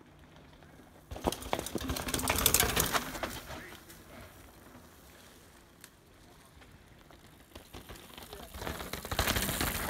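Mountain bikes riding down a rock garden: tyres crunching and clattering over rocks and dirt, with rattling from the bikes, as one rider passes close about a second in. A second bike comes down with the same clatter, growing louder near the end.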